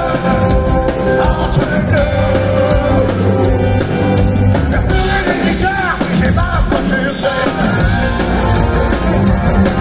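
Live concert performance of a pop-rock song: a male singer's voice over a full band, with a wavering held vocal note about midway.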